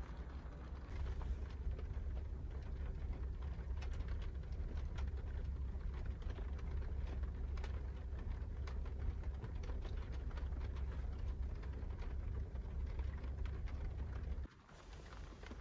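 Rain falling on the roof of a camper van, heard from inside as many scattered taps over a steady low rumble. The rumble cuts off suddenly near the end.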